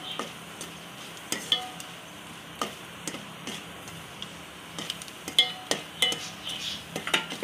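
A spoon stirring sliced almonds frying in a little vanaspati ghee in an aluminium pot. The spoon scrapes and clicks against the pot at irregular moments, some clicks ringing briefly, over a soft steady sizzle.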